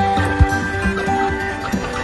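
Background music: held instrumental notes that change pitch, with a sharp low thump about half a second in.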